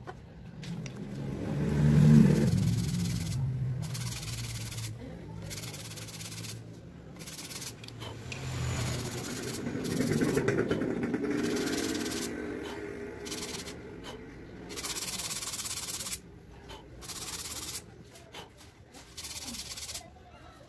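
A motor vehicle passing, its engine hum swelling and fading about two seconds in and again more softly around ten seconds. Between them come stretches of rubbing and scraping as a hand tool is worked against a paper sanding disc.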